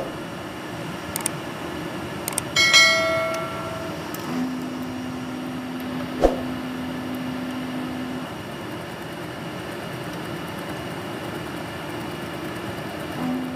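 Steady drone of running precision air-conditioning units and fans, with a low hum that comes in about four seconds in and stops about four seconds later. Over it come a few light clicks and knocks of hands and metal at the humidifier canister's wire terminals, and once, about two and a half seconds in, a brief bright metallic ring.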